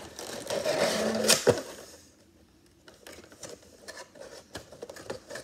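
Clear plastic bag crinkling as a bagged vinyl figure is handled and pushed into its cardboard box, with a couple of sharp clicks about a second in. After that come softer taps and rustles of handling.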